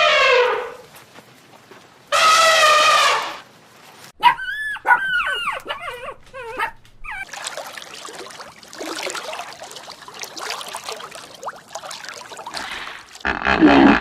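A dog whining and yelping: a falling whine at the start, a loud high whine about two seconds in, then a run of short rising-and-falling yelps, followed by softer noise.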